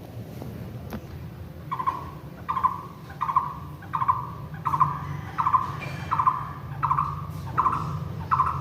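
A bird calls over and over in an even, monotonous series, starting about two seconds in: a short, fairly low note repeated about once every 0.7 seconds. A steady low hum runs underneath.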